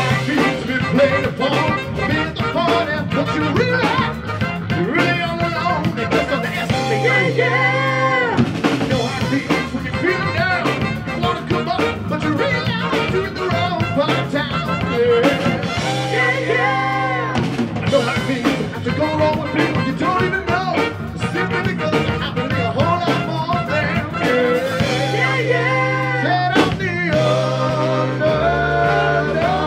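Live rock band with a horn section playing: saxophones and trombone over upright bass, keyboard and drum kit.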